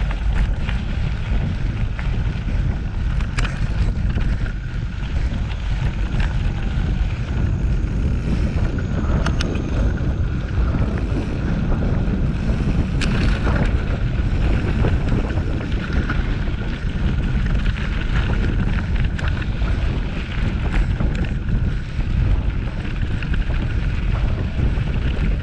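Loud, steady wind noise buffeting the microphone, with a low rumble and scattered sharp clicks and rattles.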